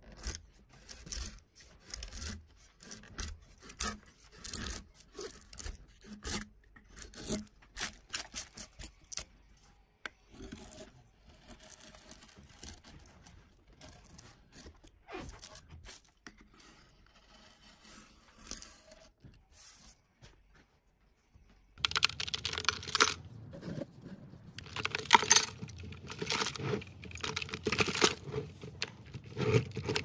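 A hand gouge cutting into a pine board, each stroke a short scraping tear as a shaving lifts, repeated irregularly. About three quarters of the way through, this gives way to a louder, busier clinking and scraping of hard pieces.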